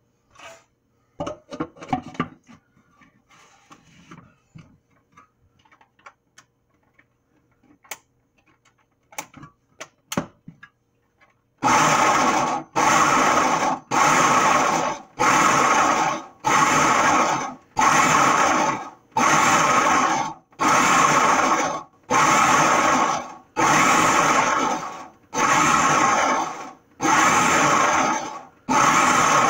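Electric food processor pulsed over and over, a burst of about a second roughly every 1.3 s, chopping a thick black bean, walnut and oat burger mixture. It is pulsed rather than run so the mix doesn't turn to mush. Before the pulsing, a few clicks and knocks of handling the machine.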